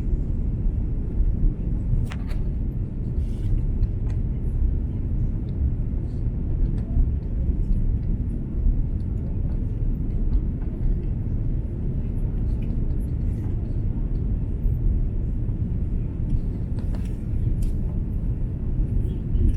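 Steady low rumble of engine and airflow noise heard inside the cabin of an Airbus A330-300 airliner on its descent to land, with a couple of faint ticks.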